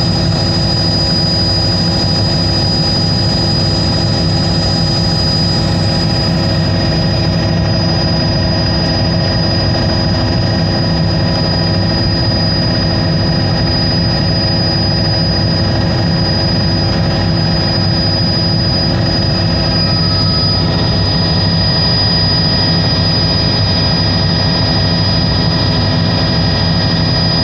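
Small aircraft's engine running steadily, heard from inside the cabin, with a constant high whine over the drone.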